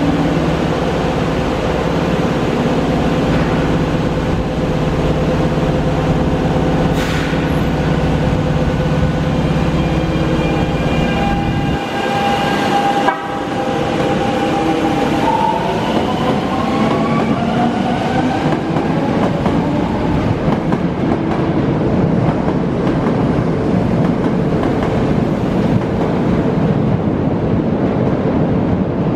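Kobe Municipal Subway 1000 series electric train pulling out of a station. A steady hum gives way to a rising whine as it picks up speed, over a steady rumble of wheels on rail, with a single knock about midway.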